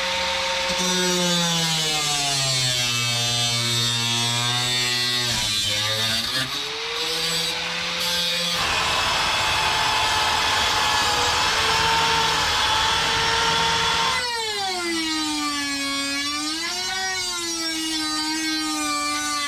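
Angle grinder running, its motor pitch sagging and recovering as it is pressed into metal, then several seconds of harsh grinding on steel. Near the end a smaller power tool takes over with a higher, wavering whine.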